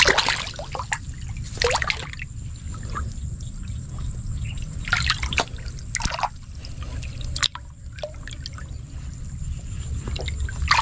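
Hands splashing and sloshing through shallow muddy water while groping for fish, with water trickling and dripping between strokes. The splashes come in a string of short bursts, the biggest at the start and around two, five, six and seven and a half seconds in, over a steady low rumble.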